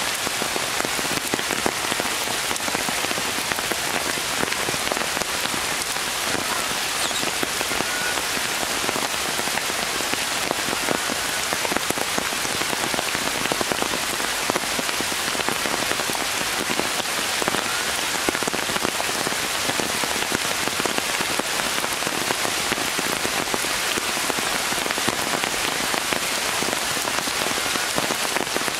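Steady rain falling on forest trees, with many separate drop hits on the leaves.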